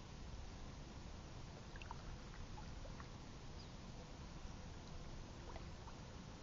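Kayak moving on calm river water: a faint, steady low rumble with a few small, scattered drips and ticks of water.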